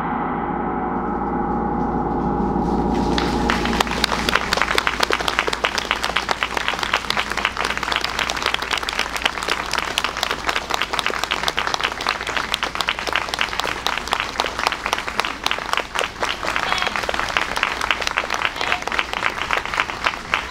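A large gong rings on and dies away at the close of a taiko drum piece; about three seconds in, the audience breaks into applause that keeps going.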